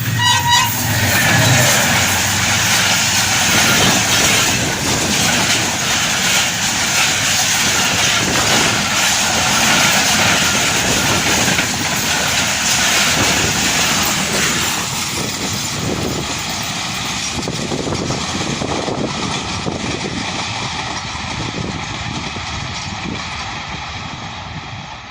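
Passenger express train passing at speed, its wheels clattering over the rail joints, the noise slowly fading toward the end.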